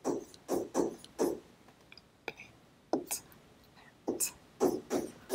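Stylus writing on a tablet screen: about a dozen short scratchy strokes and taps as a word is handwritten.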